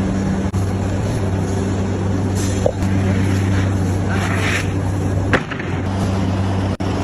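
A machine running steadily with a constant low hum, broken by a sharp knock about two and a half seconds in and another near the five-second mark.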